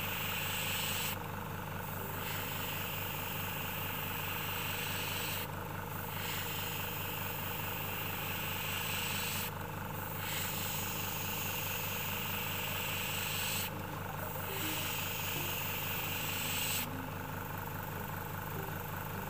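Airbrush compressor running steadily while an airbrush sprays paint with a hiss. The hiss breaks off briefly about every four seconds and falls away near the end.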